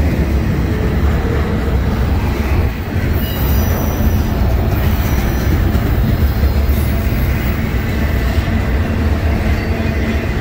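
Loaded double-stack container well cars of a freight train rolling past close by, a steady loud rumble of steel wheels on the rails.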